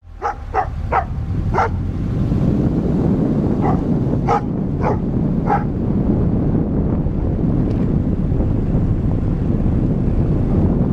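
Car driving, its engine and road rumble heard from a camera mounted on the outside of the car. A dog barks eight times in two quick runs of four within the first six seconds.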